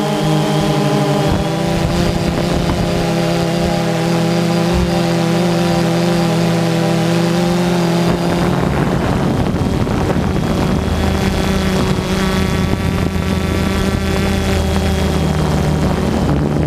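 Multirotor drone's motors and propellers whirring loudly, picked up by the camera on the drone itself. The pitch of the whine shifts about halfway through as the drone changes speed.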